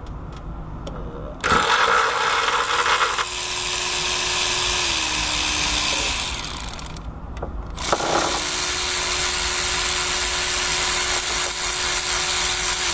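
Power ratchet running in two long runs of several seconds each, spinning out the water pump bolts. Its motor tone sags slightly as each run ends.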